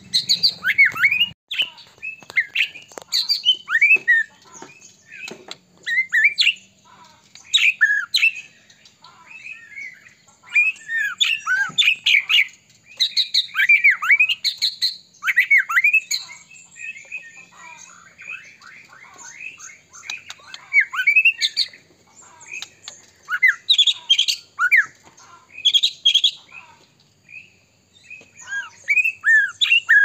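White-rumped shama (murai batu) in full song: rapid phrases of loud, clear whistled notes sliding up and down, mixed with short harsh notes, coming in bursts with brief pauses between.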